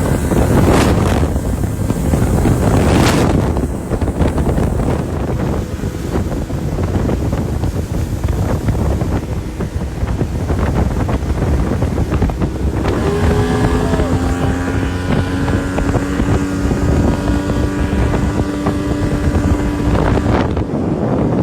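Small boat running flat out on a 1985 Yamaha 50 hp two-stroke outboard, with heavy wind buffeting on the microphone and water rushing past the hull. Two splashing surges come in the first few seconds, and about 13 seconds in a steady engine note rises clearly out of the noise.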